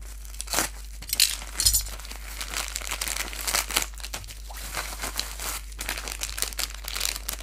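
Plastic packaging crinkling and rustling in irregular bursts as a bubble-lined poly mailer is slit open with a utility knife and a small plastic bag is pulled out and handled.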